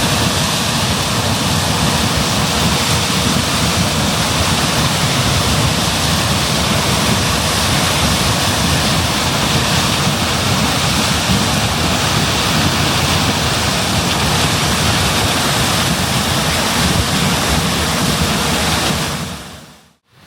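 John Deere S660 combine running while harvesting corn: a loud, steady rushing noise of engine and threshing machinery with no distinct beat.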